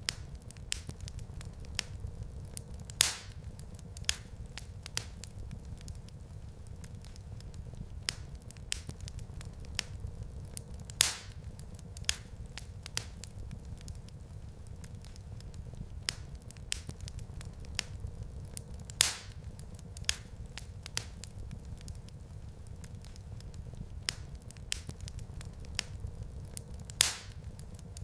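Wood fire crackling in a fireplace: a steady low rumble of flames with constant small snaps, and a few louder pops spaced evenly about eight seconds apart.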